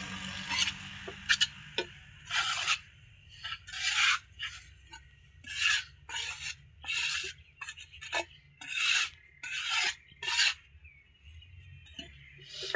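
A hand tool scraping against masonry in about ten separate rasping strokes, one roughly every second, with a short pause between them.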